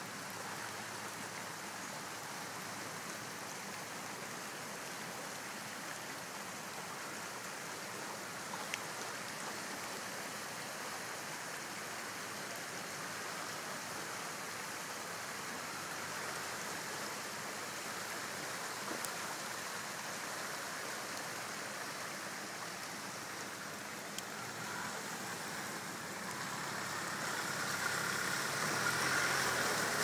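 Steady rush of flowing creek water. Near the end a Nissan Patrol's engine grows louder as the four-wheel drive comes down into the crossing.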